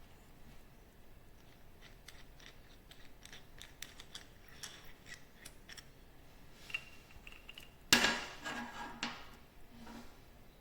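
Light clicks and taps of small hard objects being handled, then a sharp clack about eight seconds in followed by a brief rattle.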